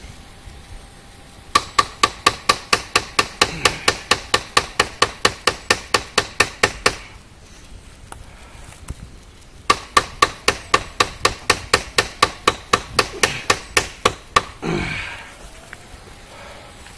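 Quick, even blows, about four a second, struck on a fixed-blade bushcraft knife lodged in a tree trunk, driving the blade deeper into the wood. There are two long runs of strikes with a pause of a few seconds between them, then a short grunt near the end.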